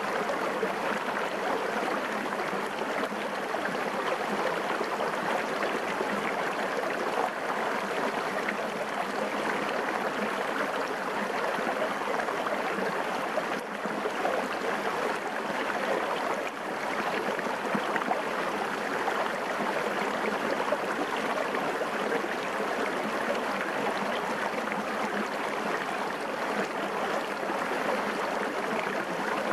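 A small, clear forest stream rushing and burbling over rocks and stones in shallow water, a steady splashing flow, close up.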